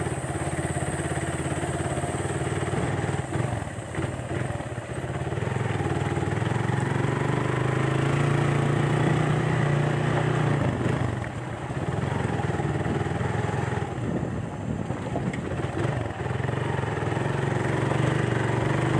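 Small motorcycle engine running as the bike rides along a road, with steady road and wind noise. The engine note rises about five seconds in, eases off briefly past the middle, then holds steady.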